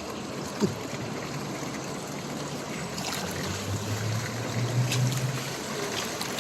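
Steady rush of floodwater in a swollen creek, with a trickling, draining sound. A low hum swells between about three and five seconds in.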